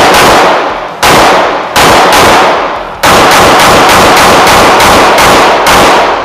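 Unsuppressed Smith & Wesson M&P compact pistol being fired: a couple of single shots, then a fast string of about a dozen shots at roughly four a second. Each shot rings on and fades over the range.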